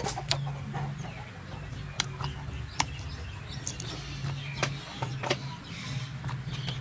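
Close mouth sounds of eating chicken by hand: chewing, lip smacks and sharp wet clicks, several a second, over a steady low hum.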